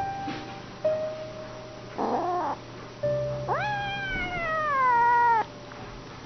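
Kitten meowing: a short mew about two seconds in, then one long, loud meow that jumps up in pitch and slowly falls away over about two seconds.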